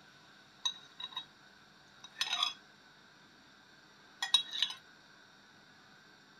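A utensil clinking and tapping against dishes while green jelly cubes are set onto the custard, in four short clusters of clicks spread over a few seconds.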